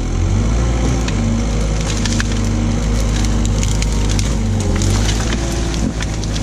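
Branches cracking and snapping as the tree clamp on a Knikmops KM 180 TE mini loader grips and lifts a tangle of brush, over the loader's engine running steadily under hydraulic load.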